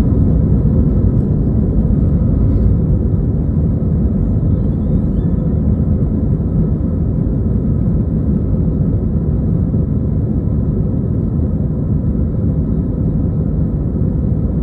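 Airbus A320 jet engines running as a steady, loud low rumble.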